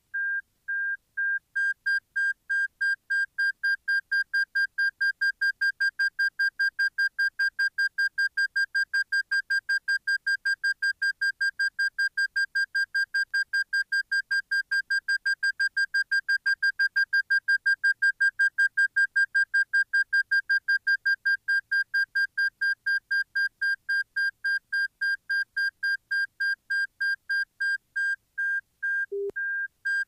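Cockpit 3D audio warning system sounding the 'slow' tone: a high electronic beep repeating rapidly and evenly, its beeps spaced wider for the first second or two, with a short lower beep near the end. The tone is panned across the stereo field to follow the slip ball as right rudder and then left rudder are applied.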